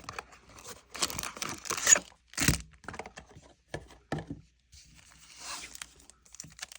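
Plastic and foil packaging of Pokémon trading card products being handled and torn open: irregular crinkling and tearing, with a few sharp snaps, the sharpest about two and a half seconds in.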